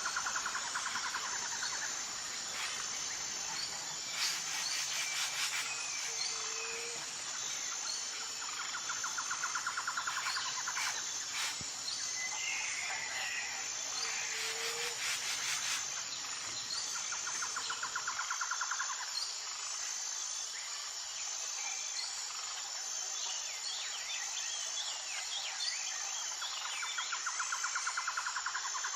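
Tropical jungle ambience: a steady, high-pitched insect drone with birds chirping here and there, and a rapid pulsing trill that comes back every several seconds.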